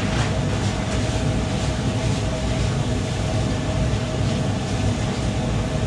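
Commercial kitchen's range extraction hood and gas wok burner running: a steady low rumble and rush with a constant hum through it. A few faint clicks sound over it.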